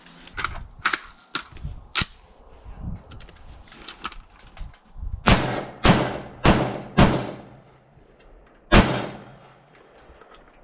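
Rifle gunfire on an outdoor range: four sharp reports about half a second apart just past the middle, then a fifth about two seconds later, each ringing off briefly. A few lighter sharp knocks come in the first two seconds.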